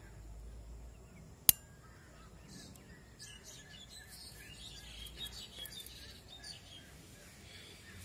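A single sharp click about one and a half seconds in, from a folding pocket knife's blade being snapped shut into its handle. After it, small birds chirp repeatedly.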